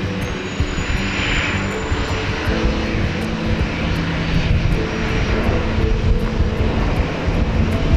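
Boeing 737-800's CFM56-7B turbofan engines at takeoff power during the takeoff roll: a loud, steady rumble that grows a little louder in the second half.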